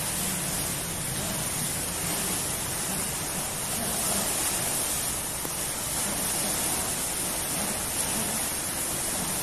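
Steady rushing and splashing of swimming-pool water as people swim and splash about.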